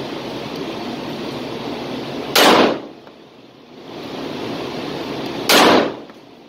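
Two 9mm pistol shots from an Arex Rex Alpha, about three seconds apart, slow aimed fire in an indoor range lane, over a steady hiss.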